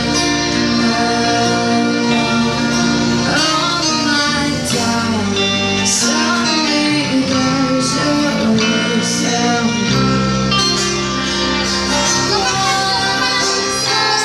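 Live band playing a slow pop ballad: a girl sings lead over strummed acoustic guitar, bass, keyboard and drums.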